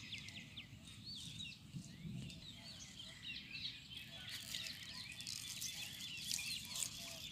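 Faint chirping of many small birds: quick, overlapping short calls that rise and fall in pitch, continuing throughout.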